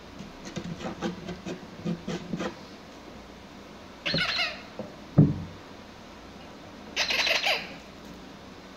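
A spiky rubber squeaky ball squeezed twice, about three seconds apart, each squeak lasting about half a second. Before the squeaks there is light scuffling of puppies at play, and between them comes a single thump, the loudest sound.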